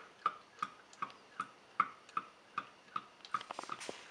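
Motor oil glugging out of a plastic jug into a funnel as air bubbles back in: short, sharp glugs at a steady rate of about two and a half a second. A quicker flurry of clicks comes near the end.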